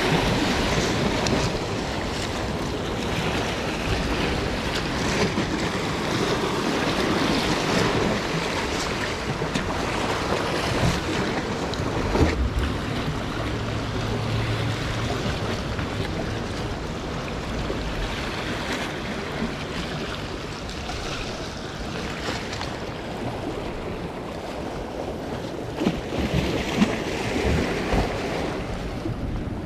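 Ocean surf breaking and washing on a sandy beach, with wind buffeting the microphone; a few low thumps about twelve seconds in and again near the end.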